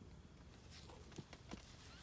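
Near silence with a few faint, soft clicks about halfway through from newborn kittens nursing.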